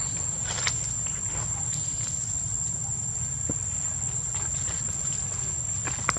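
Steady, high-pitched drone of insects chirring, over a low rumble, with a few faint clicks and rustles and one sharper click near the end.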